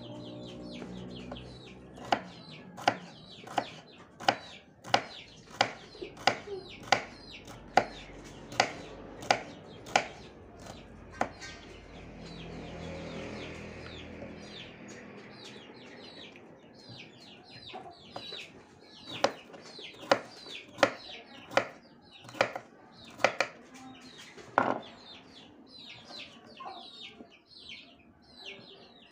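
Knife chopping bitter melon on a wooden cutting board: sharp chops about three every two seconds, pausing for several seconds midway and then resuming for a second run.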